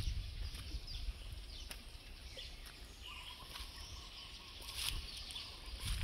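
Forest birds chirping with short high calls, and one longer, rapid stuttering call from about three seconds in to about five. Under them, footsteps on a dirt and leaf-litter path and a low rumble from the walking, handheld camera, strongest at the start and near the end.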